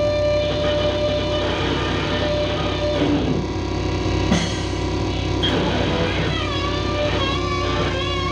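Music from a trio of modular synthesizer, effects-treated bass guitar and drums: dense layered sustained tones, with a sharp hit about four seconds in and wavering, gliding pitches over the last couple of seconds.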